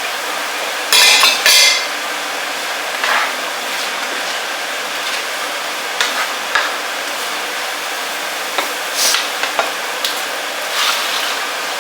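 Kitchen utensil stirring and knocking in a cooking pot: two loud clanks about a second in, then scattered lighter knocks, over a steady hiss.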